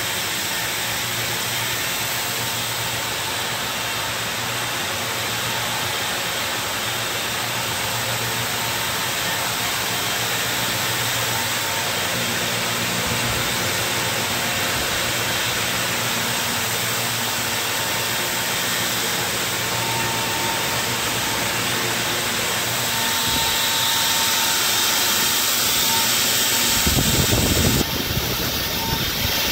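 Circular knitting machines running: a steady mechanical whirr and hiss with faint steady hums under it. A brief low rumble comes a little before the end.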